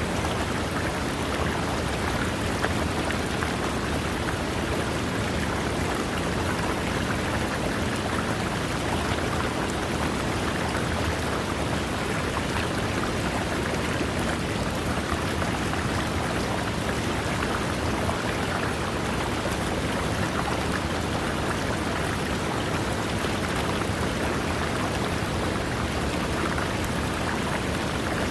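A river running over rocks: a steady, unbroken rush of water.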